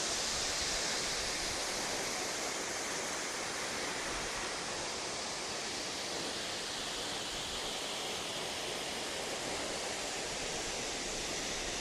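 Steady rush of a large waterfall, water pouring and crashing without let-up.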